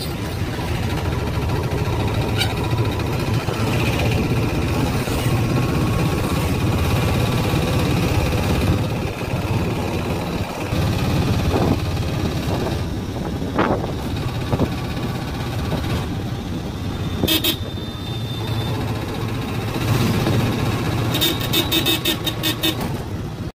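Auto-rickshaw engine running as it drives through traffic, heard from inside the open cabin with road noise. Vehicle horns toot now and then, with a quick string of short horn beeps near the end.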